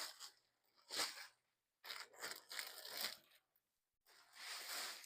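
Plastic packaging bag rustling and crinkling as it is pulled open to get the clothing out, in four short bursts of noisy rustle.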